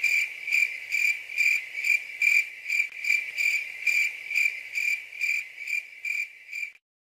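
An insect, cricket-like, trilling continuously in a high pitch that swells in about two pulses a second, then cuts off abruptly near the end.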